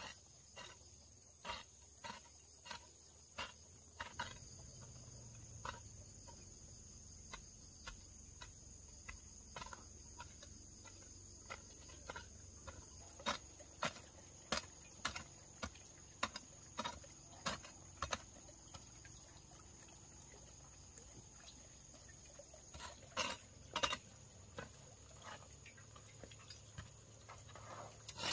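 A series of sharp knocks or taps, about two a second at first and then more irregular, with the loudest pair about twenty-three seconds in. A steady high-pitched hum runs underneath.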